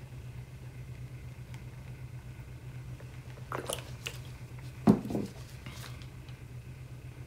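A steady low hum from an electric cup turner motor turning the tumbler. Brief handling clicks and rustles come about three and a half seconds in, then a sharper knock about five seconds in, the loudest sound.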